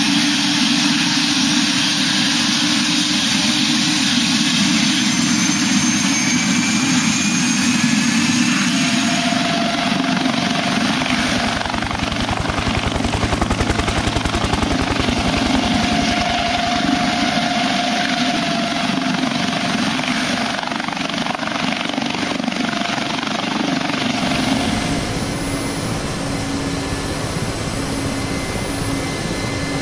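Helicopter turbine and rotor running up for take-off, with a fast rotor chop from about a dozen seconds in. About three quarters of the way through it changes to a steadier, duller drone, as heard inside the cabin.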